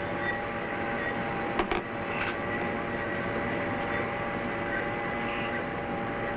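Steady hum and whine of the electronic equipment and ventilation in an underground missile launch control centre: several steady tones over a noisy drone. A couple of sharp clicks come about one and a half to two seconds in.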